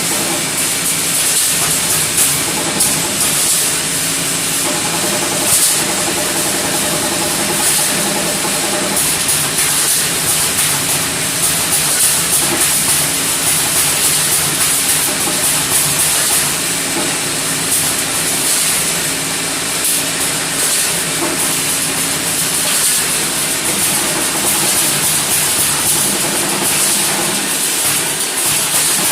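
Electric spot welder at work: a steady crackling hiss, with a buzzing hum that switches on and off every second or two.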